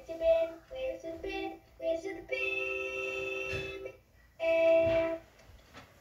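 A recorded singing voice played back through a voice-changer app's vocoder effect, its pitch held dead flat on each note. A few short sung phrases, then a long held note in the middle and a louder, shorter note near the end.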